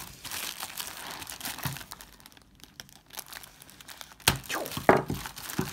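Clear plastic shrink-wrap crinkling as it is handled and slit open with a knife, with a couple of sharp crackles about four and five seconds in.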